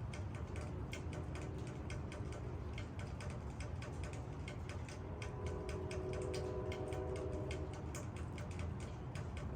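Rain: close raindrops ticking irregularly on leaves, several a second, over a steady low wash of rainfall.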